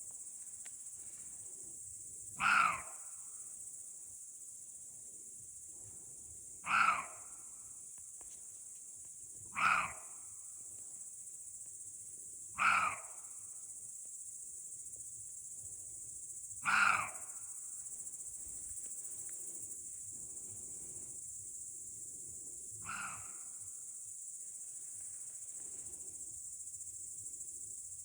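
Roe deer barking: six short, sharp, dog-like barks spaced a few seconds apart, the sixth fainter. It is a call roe deer give to warn of danger, to defend territory, or during the rut. A steady high hiss runs underneath.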